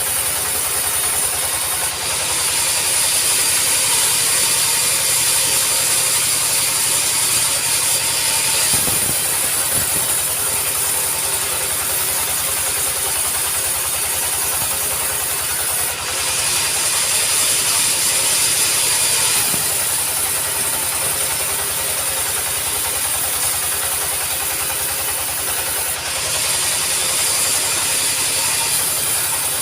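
Sawmill running, sawing acacia wood: steady loud machine noise with a fast rattling rhythm underneath. A harsher high hiss swells in three times: about two seconds in, again past the middle, and near the end.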